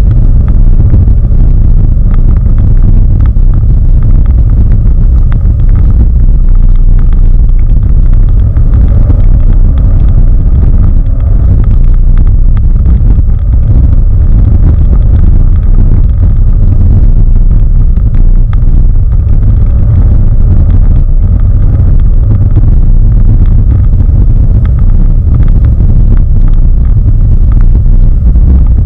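Inside the cabin of a BMW 530i with its 3.0-litre straight-six, driven hard on snow: a loud, steady low rumble of engine and tyres that stays near full scale.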